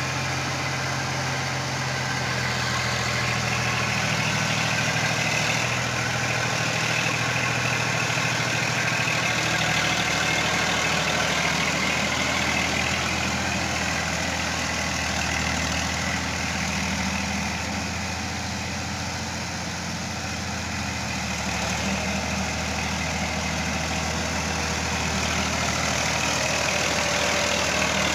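Massey Ferguson 240 tractor's three-cylinder diesel engine running steadily while hauling a heavily loaded straw trolley. Its engine note dips slightly a few seconds in and rises again about two-thirds of the way through.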